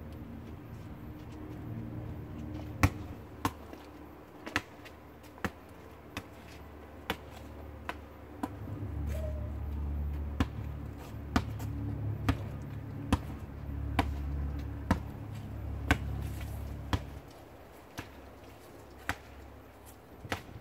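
A basketball being dribbled on an asphalt driveway: sharp bounces, irregular at first, then evenly spaced about once a second through the middle. A low rumble runs underneath through the middle stretch.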